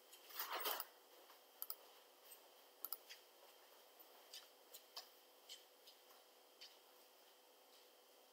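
Faint, scattered clicks, about a dozen spread unevenly, with a short rustling burst about half a second in: a computer mouse being clicked and handled on a desk, over quiet room tone.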